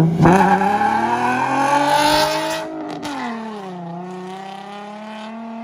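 Nissan 350Z's VQ35HR V6 through a straight-piped exhaust with the muffler and resonator deleted, accelerating hard with the brassy note climbing in pitch for about two and a half seconds. Around three seconds in the pitch falls, and the note carries on steadier and fainter as the car pulls away.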